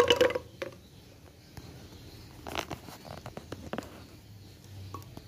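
Candlenuts dropped by hand into an empty plastic blender jar, knocking against the plastic and the blade: a cluster of hard clicks at the start, the loudest, and a scatter of smaller clicks and knocks about halfway through.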